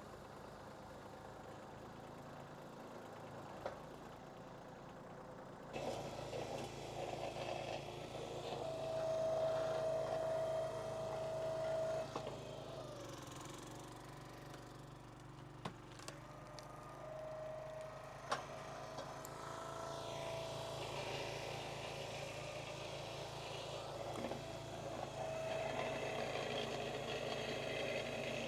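An engine driving hydraulic firewood equipment runs steadily and gets louder about six seconds in. Three times a held whine rises over it as the hydraulics take load, and a few sharp knocks come in between.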